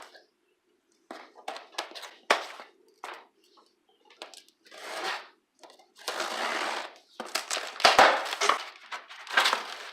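Cardboard shipping box and packing material being opened and pulled apart by hand: scattered clicks and knocks, then longer stretches of scraping and rustling, with a hard knock about eight seconds in.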